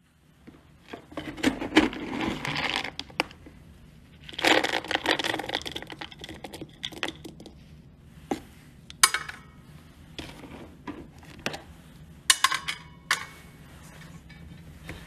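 Dry dog kibble rattling and scraping as it is scooped from a plastic storage bin with a plastic cup. Then a few single pieces drop into an empty stainless steel bowl, making two longer rattles followed by several separate sharp clicks.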